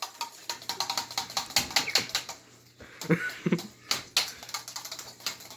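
Rapid, irregular light clicking and tapping, like keys on a keyboard, with a short low vocal sound about three seconds in.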